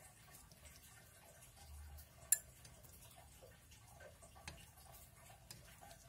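Faint, scattered clicks of chopsticks against a ceramic plate of stir-fried pakcoy, with one sharper click a little over two seconds in.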